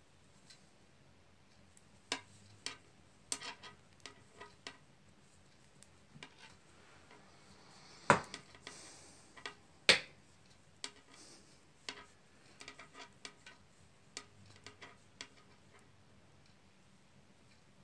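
Knitting needles clicking and tapping against each other at an irregular pace as stitches are worked, with two sharper clicks about two seconds apart around the middle.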